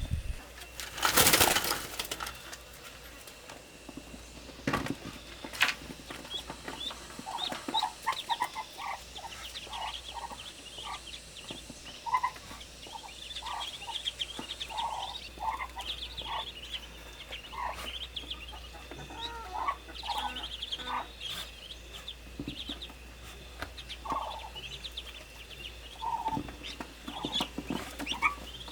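Farm poultry calling: a run of short, repeated low clucks mixed with high peeps. There is a brief loud rustle about a second in.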